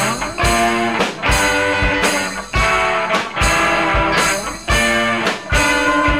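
Rock music: electric guitar playing over drums, with heavy low drum hits landing about once a second.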